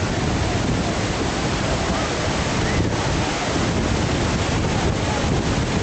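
Steady wind noise on the microphone over the continuous wash of sea surf.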